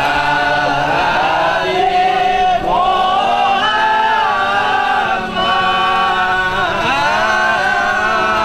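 A group of men singing a chant in unison, in long held notes that step up and down in a slow melody.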